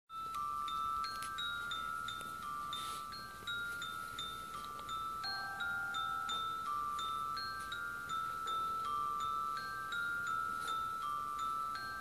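Music: a slow, bell-like chiming melody of single plucked-sounding notes, about one or two a second, stepping back and forth between a few close pitches like a music box or glockenspiel.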